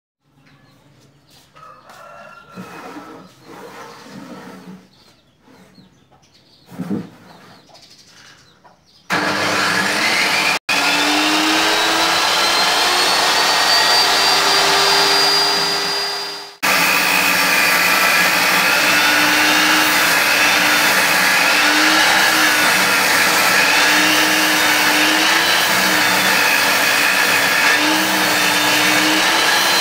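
Homemade table saw starting up about nine seconds in, its whine rising as the blade spins up, then running steadily while a board is ripped lengthwise, the pitch wavering as the blade works through the cut.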